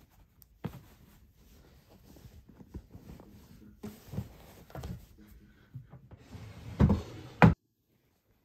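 Clothes rustling and soft knocks as folded jeans are pressed into a wooden dresser drawer, with two louder thumps about seven seconds in; the sound cuts off suddenly near the end.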